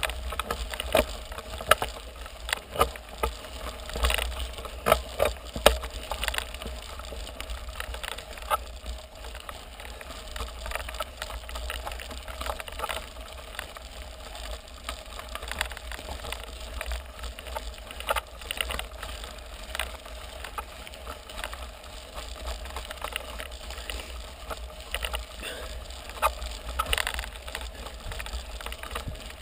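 Mountain bike tyres rolling over a loose gravel road, stones crunching and popping under them with many sharp clicks, over a steady low rumble.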